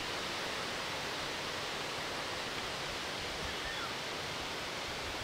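Steady wind rustling through the trees and over the microphone, an even hiss with no bell or train sound.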